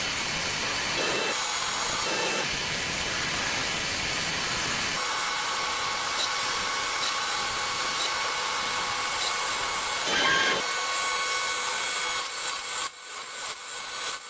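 CNC milling machine cutting a part: a steady running noise with several thin whining tones from the spindle and cut. About twelve seconds in it turns into an even pulsing, about two to three beats a second.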